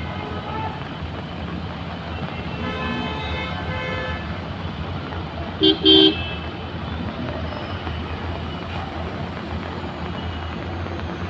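Slow road traffic hum with vehicle horns honking: fainter horns about three seconds in, then two short, loud horn blasts about six seconds in.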